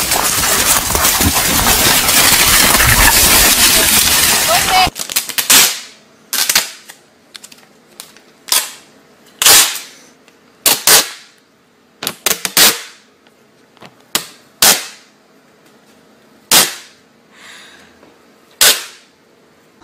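Loud, dense noise for about five seconds. It then stops, and a series of about a dozen sharp, sudden cracks or pops follows, spaced irregularly from under a second to about two seconds apart.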